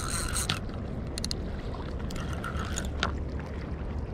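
Spinning reel being cranked to fight a hooked fish, its gears whirring in short spells, over a steady low rumble.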